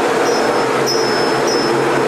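Steady, loud machinery drone with a constant hum, and a faint high-pitched tone pulsing about every half second.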